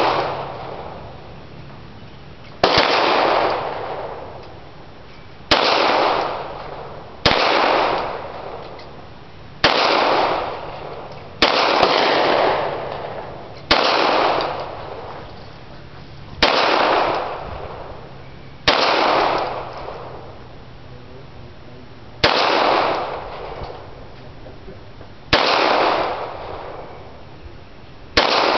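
Pistol fired in slow, deliberate single shots, eleven of them spaced two to three seconds apart, each shot trailing off in about a second of echo.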